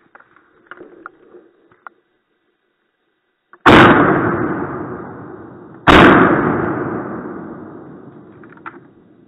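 Two shotgun shots about two seconds apart. Each is very loud and rings on in a long echo that fades over a few seconds.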